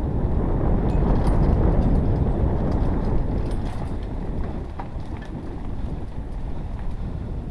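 Wind rushing over an action camera's microphone while a mountain bike rolls fast over a dirt forest trail, tyres rumbling, with a few light rattles and clicks. Loudest early on, easing slightly later.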